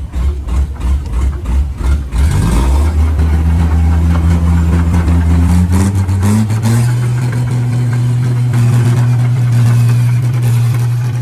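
Engine of a paddy (rice) machine running. It is uneven and choppy for about two seconds, then settles into a steady run, its pitch stepping up twice as it revs to a higher speed and holds there.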